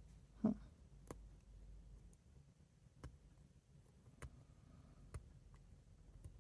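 Faint, scattered clicks and taps of small metal lockpicking tools and a padlock being handled, about six or seven separate ticks with one louder knock about half a second in.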